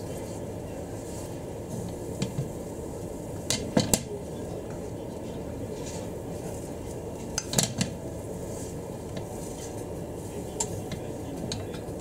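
A slotted spatula tapping and scraping against a frying pan as rolled egg is folded. There are clusters of clicks about a third and two thirds of the way through and lighter taps near the end, over a steady low hiss.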